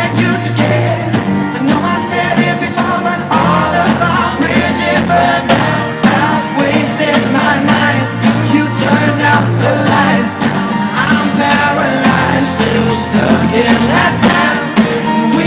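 Live pop-rock band playing at a concert, with sung vocals over drums, bass and guitar, recorded on a phone from the audience.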